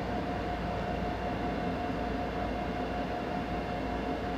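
Siemens 'Hellas Sprinter' electric locomotive standing and running at rest: a steady hum over a low rumble, with a high whine held on one pitch.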